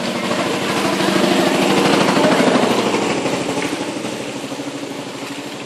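Motorboat engine running with a fast, rough pulse. It grows louder to a peak about two seconds in, then fades.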